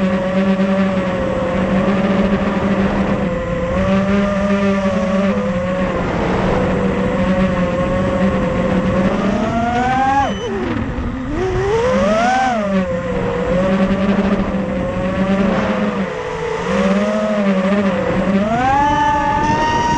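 FPV race quadcopter's Racerstar 2205 2300kv brushless motors spinning DAL 5045 three-blade props, heard from the camera on the frame: a buzzing whine that rises and falls with the throttle. It sweeps up and back down sharply twice in the middle and climbs to a high, held pitch near the end.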